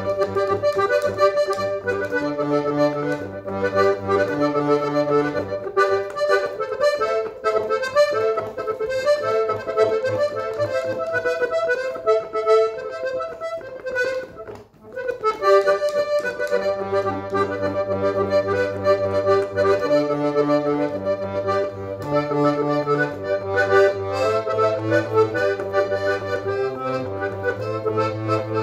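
Small Golden Cup piano accordion playing a melody on the right-hand keys over an alternating left-hand bass accompaniment, with a brief break about halfway through before the tune resumes.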